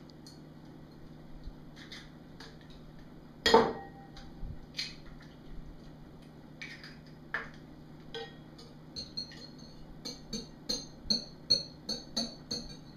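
Eggs cracked against the rim of a ceramic bowl, with one sharp knock about three and a half seconds in the loudest. Near the end a fork beats the eggs in the bowl, clinking against it about two to three times a second.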